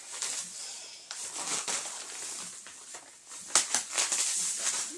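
Thin plastic shopping bag crinkling and rustling in irregular bursts as it is pulled down over a head and shoulders, with a sharper crackle about three and a half seconds in.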